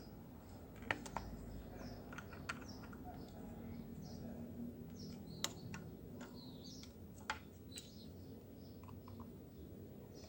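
Scattered light clicks and taps of a hair clipper's blades and small parts being handled while the blade alignment is set, about seven in all at uneven intervals. Faint bird chirps sound in the background.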